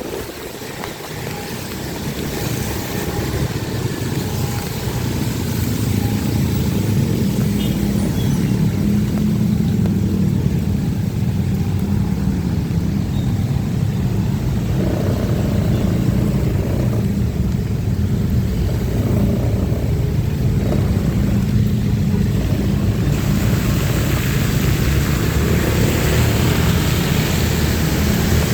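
Motorcycle engine running steadily with road noise on a wet road. It grows louder over the first several seconds, and a higher hiss strengthens near the end.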